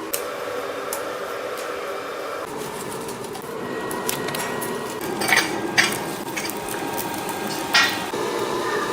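Bronze clanking as it is struck or handled three times, one strike leaving a short ringing tone, over a steady background din.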